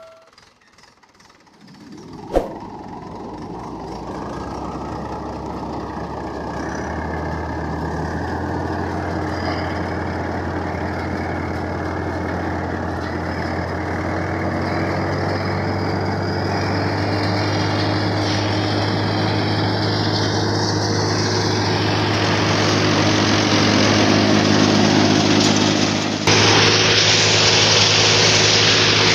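Mahindra 475 diesel tractor engine starting up about two seconds in, then running steadily and gradually picking up as it drives the thresher. Near the end a louder rushing sound joins as the thresher works and throws out chaff.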